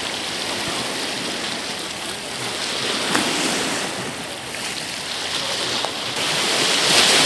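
Steady noise of sea waves and wind, growing a little louder near the end, with a couple of faint ticks.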